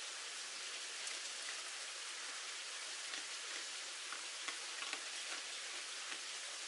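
Steady hiss of light rain falling, dotted with many small scattered drip-like ticks.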